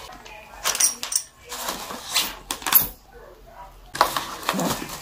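Plastic bag and foam packaging crinkling and rustling as the unboxed parts are handled, with a few sharp clicks and a louder rustle about four seconds in.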